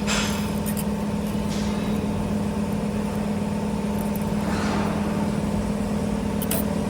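CNC spring-making machine for 4.5 mm wire running: a steady motor hum with a few swells of hiss, and light clicks near the end.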